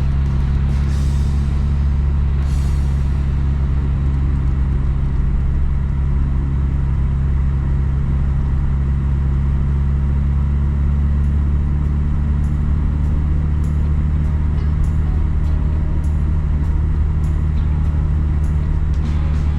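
Car driving at a steady speed: a constant low drone of engine and road noise.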